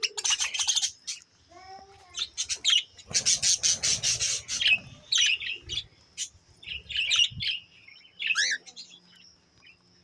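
Pet budgerigars and cockatiels chirping and chattering in short bursts, the loudest a rapid run of chatter about three seconds in. A faint steady high tone runs through the second half.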